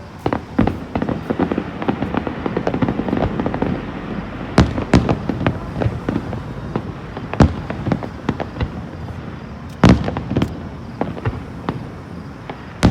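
Aerial fireworks display going off: a dense run of crackling bursts through the first few seconds, then separate loud shell bangs every couple of seconds, the loudest about ten seconds in.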